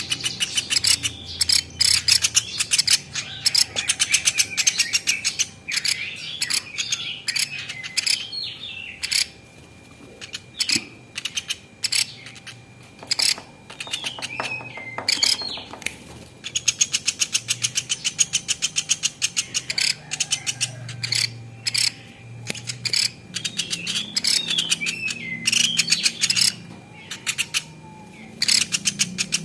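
Platuk beras bird calling in long, rapid trills of sharp ticks mixed with short chirps, in bursts separated by brief pauses.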